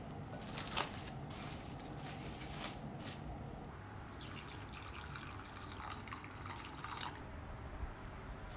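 Plastic wrap crackling as it is stretched and handled over a glass bowl. A few sharp crackles come in the first three seconds, then a longer spell of dense crinkling from about four to seven seconds in.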